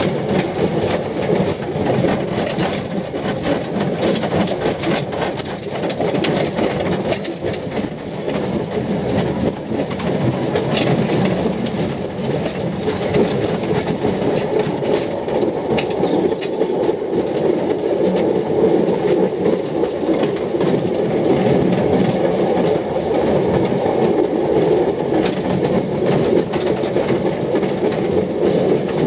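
Open narrow-gauge railway carriage running along the track: a steady rumble with frequent irregular clicks and clatter from the wheels on the rails.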